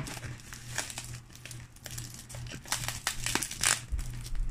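Paper flyer and cardboard wrapping crinkling and rustling in irregular bursts as a taped parcel is unwrapped by hand, with a dull low bump near the end.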